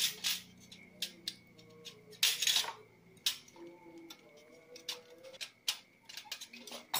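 Screwdriver tightening a screw on an aluminium TV antenna boom, with irregular metallic clicks and clinks from the aluminium parts being handled and a brief scraping rustle about two and a half seconds in.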